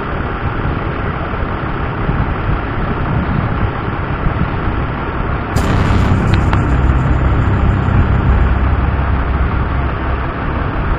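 Pushback tug's engine running under load as it pushes a Boeing 737 back from the gate, a heavy steady rumble that grows louder and harsher about halfway through.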